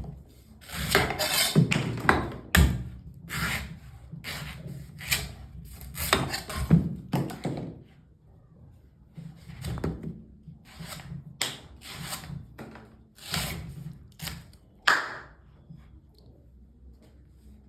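Knife strokes cutting and scraping a coconut, one or two a second, with a few dull thunks among them. The strokes thin out near the end.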